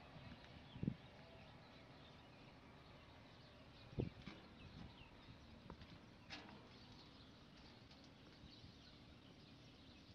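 Near silence: faint outdoor background with three soft knocks, about a second in, around four seconds and just past six seconds, and a few faint high chirps.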